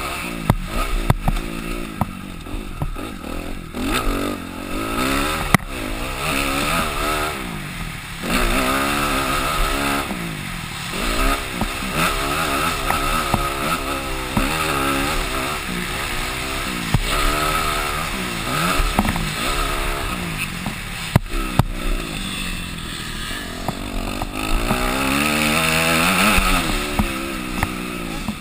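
Motocross bike engine heard from the rider's helmet camera, revving up and falling back again and again as the bike accelerates, shifts and slows around the dirt track. A few sharp knocks cut through it.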